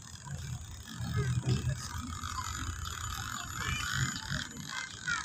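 Footsteps walking on a paved path, heard as irregular low thuds, with short chirping calls over them in the second half.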